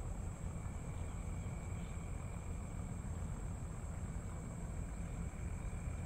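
Steady chorus of tropical insects, two unbroken high trills at different pitches, over a constant low rumble.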